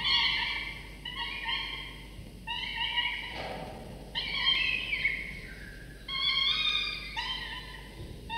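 Peregrine falcon nestlings, about 3½ weeks old, begging for food while being fed: a series of about six drawn-out, slightly rising wailing calls, each just under a second long, roughly one a second.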